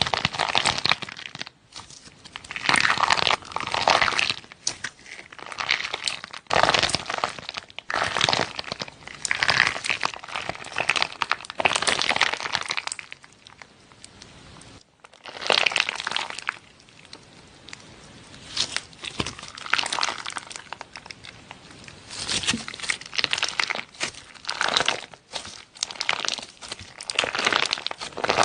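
Slime being squeezed and worked by hand, making crinkly, crackling squishes in repeated bouts of a second or two, with a brief lull about halfway through.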